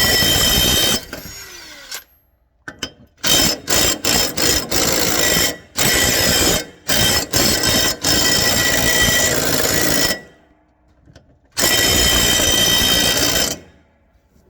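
Impact driver hammering on a stuck mower blade bolt soaked in penetrant, in repeated trigger bursts: a string of short stabs, then several runs of one to two seconds.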